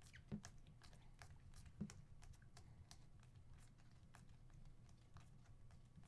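Faint, irregular clicking and flicking of Panini Prizm basketball cards being thumbed through by hand, over a low steady hum.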